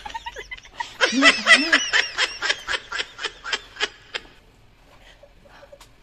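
A woman laughing hard in a quick run of ha-ha pulses, about five a second, that fades out a little after four seconds in.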